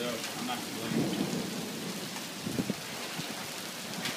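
Thunderstorm: rain falling steadily, with a low rumble of thunder about a second in and two short sharp cracks a little past halfway.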